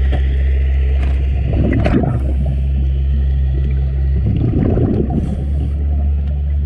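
Underwater recording of a steady low mechanical drone made of several held low tones, from a motor carried through the water. Two spells of crackling and gurgling come through it, one about two seconds in and a longer one between four and five seconds in.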